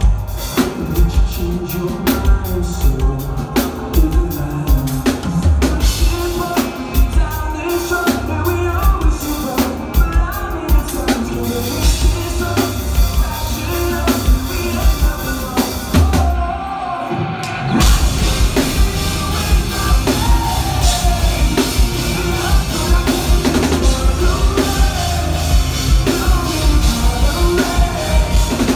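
Live rock band playing a song, with a driving drum-kit beat, kick drum and singing. About 16 seconds in, the drums drop out for about a second, then the full band comes back in.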